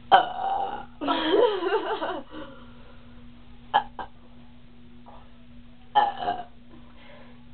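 Girls burping deliberately after drinking cream soda: a short burp, then a longer drawn-out one with a wavering pitch, and another short burp about six seconds in.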